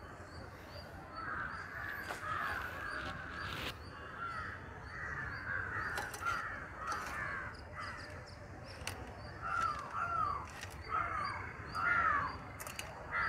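Several crows cawing again and again, many short calls in close runs.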